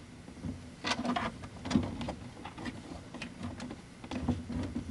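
Gauge wires pulled up through a plastic A-pillar gauge pod: irregular rustling, scraping and light clicks of wire and plastic handled by hand, strongest about a second in.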